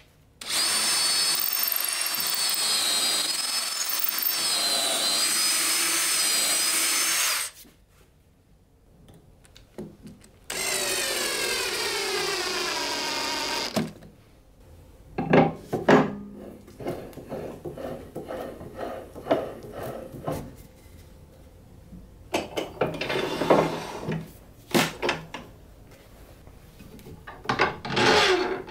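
Cordless drill boring a pilot hole into a figured maple bowl blank, running steadily for about seven seconds. A second, shorter run follows with its pitch falling steadily as the motor slows. After that come scattered knocks and clicks from handling the faceplate and screws.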